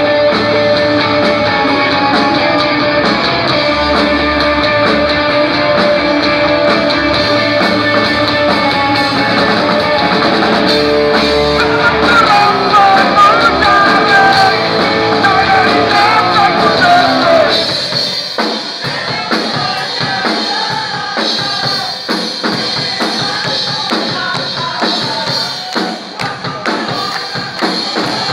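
Live grunge rock band playing: electric guitars and a drum kit, with singing. About two-thirds of the way in, the bass and low drums drop out and the music thins to a sparser section.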